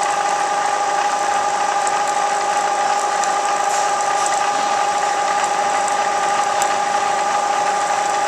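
Milling machine running with a steady whine, its cutter taking a depth cut into the part.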